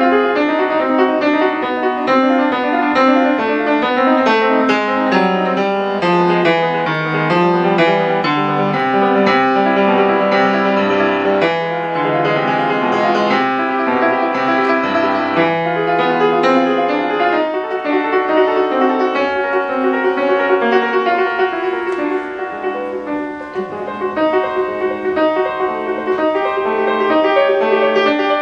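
Solo grand piano being played, a continuous stream of quick notes.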